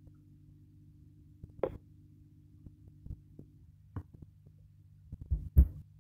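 Scattered soft thumps and knocks of a hand and pencil against a spiral notebook on a desk, one about two seconds in and the loudest cluster near the end. A faint steady low hum lies underneath.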